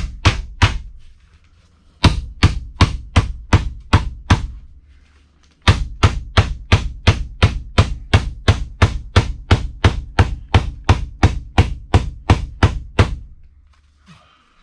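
Hammer driving nails into wooden framing: steady blows about three a second, in three runs with short pauses about a second and four and a half seconds in.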